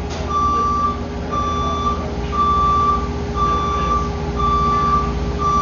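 Reversing alarm on an engine-driven vehicle, beeping a single steady tone about once a second, around six beeps, over the low, steady running of its engine.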